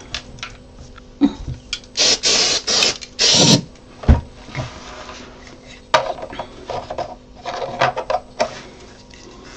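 Two hisses from an aerosol superglue activator spray, a longer one then a short one, the spray that makes the glue set on contact. After them come knocks, taps and short scrapes of 3D-printed plastic parts and the can being handled on a metal bench.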